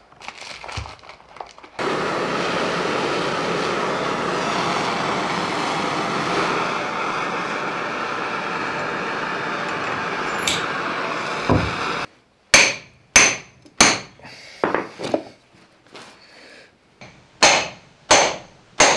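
Hand-held gas blowtorch burning with a steady hiss for about ten seconds, heating a tight collar on a Land Rover half shaft so it will slide on. It cuts off abruptly, then come about six sharp metallic clanks, in two groups of three, as a steel pipe is driven down the shaft to hammer the heated collar home.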